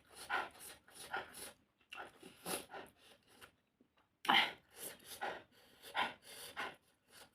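Close-miked eating sounds: wet chewing and lip smacking with sharp, panting breaths between bites, in irregular short bursts.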